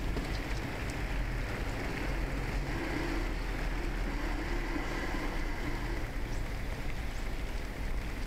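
Steady rumbling ride noise from a bicycle rolling along a wet footpath: tyre noise mixed with wind on the bike-mounted camera's microphone.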